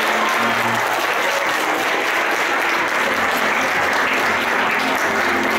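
An audience applauding steadily, with faint music underneath.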